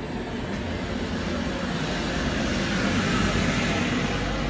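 InterCity 225 passenger train, driving van trailer leading, moving slowly past along the platform: the rumble of its wheels on the rails and its coaches, swelling about three seconds in and then easing.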